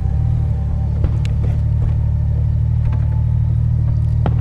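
2015 Honda Gold Wing GL1800's flat-six engine running steadily at cruising speed, a low even hum. A couple of short sharp clicks come about a second in and near the end.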